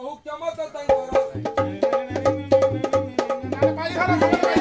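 Folk-theatre band music starting about a second in: quick, regular hand-drum strokes under a melodic instrument playing a short repeated phrase.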